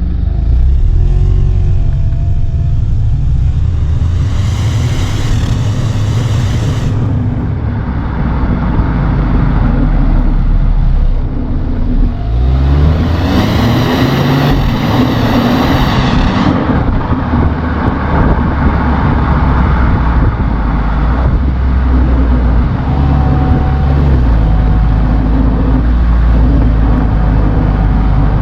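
Hyundai HB20 1.0 turbo three-cylinder engine running and revving. Its pitch sweeps up sharply about twelve seconds in, with two stretches of rushing hiss.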